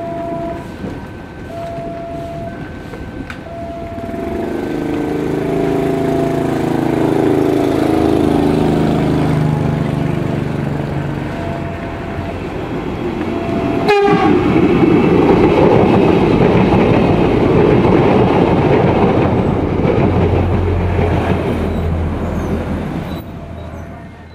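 A level crossing warning signal pulses in a regular on-off pattern as a diesel locomotive approaches and sounds a long horn blast. The train then passes close by, with the loud rumble and clatter of wheels on the rails and the diesel engine running, until the sound cuts away near the end.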